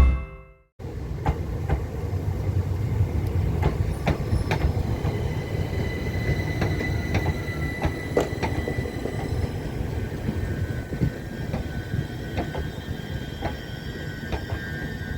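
A train moving on the rails: a steady low rumble with irregular clicks from the wheels, and a thin high wheel squeal holding a steady pitch that comes in partway through. The sound cuts in suddenly just under a second in.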